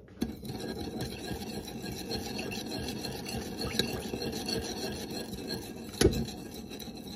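A metal spoon stirring soy-sauce marinade with sugar and sesame seeds in a ceramic bowl, scraping steadily against the bowl. There is one sharp knock about six seconds in.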